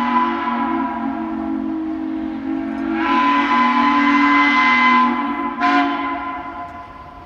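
Steam locomotive whistle giving one long, chord-like blast that swells about three seconds in, with a brief sharp rise in pitch near six seconds before it fades away.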